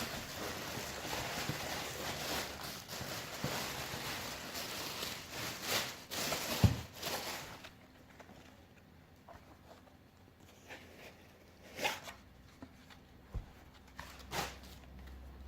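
Paper packaging rustling and crinkling steadily as a sneaker box is unpacked, with a sharp knock about six and a half seconds in. After that, only a few faint handling clicks and rustles.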